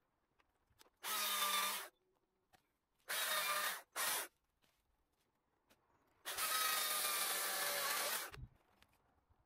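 Stihl MSA 220 battery chainsaw run in four short bursts, the last and longest about two seconds, each a motor whine over the chain's noise. It stops dead between bursts.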